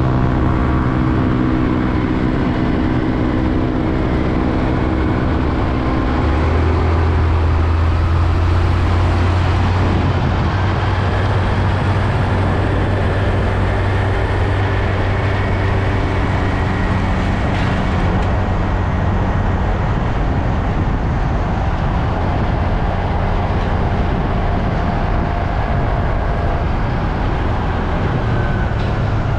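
Heavy container truck engines running in street traffic, with steady road noise. A deep engine hum grows stronger about six seconds in and holds for most of the stretch.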